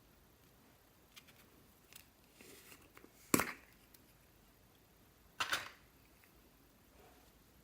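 Slime being handled and mixed: a few faint sticky clicks, then two sharp pops about two seconds apart, the first the loudest.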